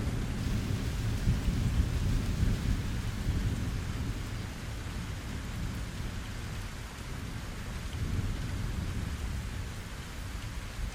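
Steady rain with a low rumble of thunder rolling under it, strongest over the first few seconds, fading, then swelling again about two-thirds of the way through.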